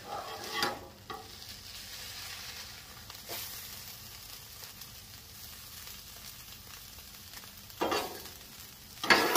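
Ground elk sizzling on a Blackstone steel flat-top griddle, with a metal spatula scraping across the steel as the meat is scooped up. The scrapes come about half a second in and, loudest, twice near the end.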